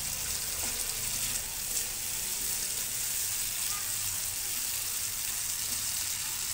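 Ground turmeric spice paste sizzling as it fries in oil in a pan, with a spatula stirring through it; the paste is being sautéed until fully cooked.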